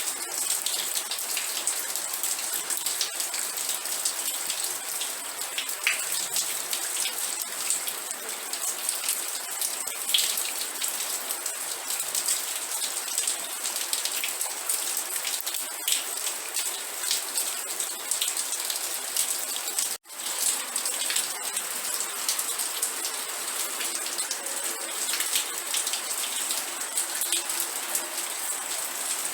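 Steady rain falling, a dense patter of individual drops. The sound cuts out for an instant about twenty seconds in.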